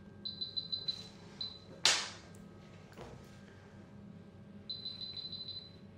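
Rapid trains of high electronic beeps at one steady pitch, a short run near the start with a single beep after it, and another run near the end. A single sharp crack about two seconds in is the loudest sound, with a fainter click a second later.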